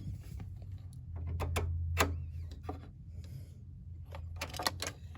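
Scattered plastic clicks and knocks of keyboard and mouse cable plugs being handled and pushed into a PC's ports, busiest near the end. A low hum swells in the middle.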